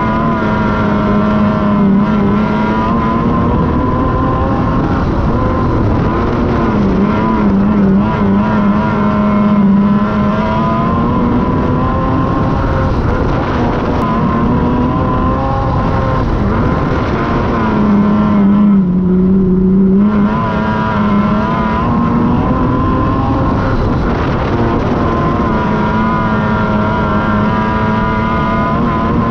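Wingless sprint car engine running hard at high revs, holding a fairly steady pitch with a few brief dips as the throttle eases. The longest dip comes about two-thirds of the way in.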